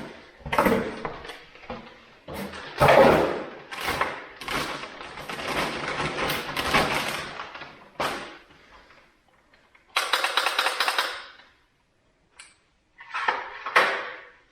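Tools and packaging being handled: a run of irregular clattering knocks and rustles, with a dense rattle about ten seconds in.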